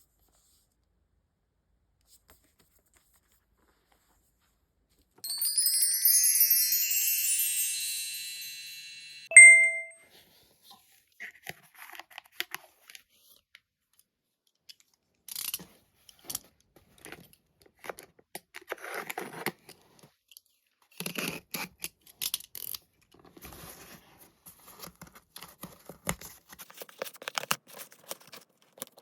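A sparkling chime sound effect that fades over about four seconds and ends on a bright ding. Then comes irregular crinkling and tearing of packaging, as when manga volumes are unwrapped.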